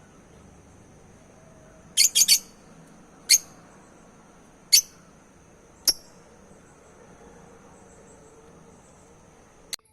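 African lovebirds giving short, sharp chirps: a quick run of three about two seconds in, then single chirps spaced a second or so apart, and one more near the end.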